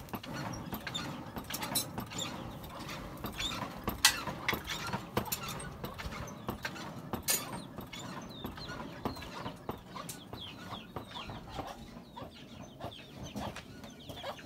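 Sharp, irregular metal clinks of hand-hammering at a blacksmith's forge, then chickens clucking and chirping.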